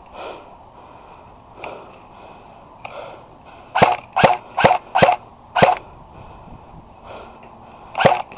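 Airsoft rifle firing semi-automatic: five sharp shots in quick succession about four seconds in, then another shot near the end.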